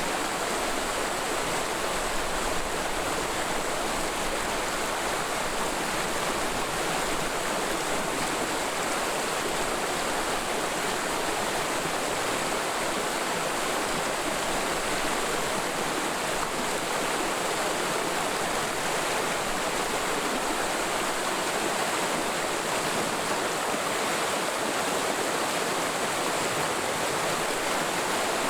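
Mountain stream in a forest valley running over rocks: a steady, even rush of flowing water.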